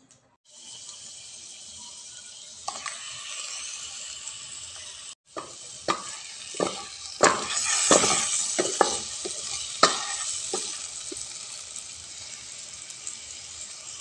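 Chicken pieces frying with ginger and onion in a pot: a steady sizzle, with a run of knocks and spatters through the middle as the pieces are put in and moved. The sound breaks off for a moment about a third of the way in.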